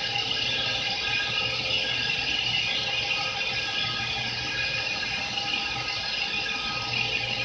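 CK6197W CNC wheel lathe turning an alloy wheel, its tool cutting the wheel face: a steady hiss of cutting over the machine's low hum and a faint steady tone.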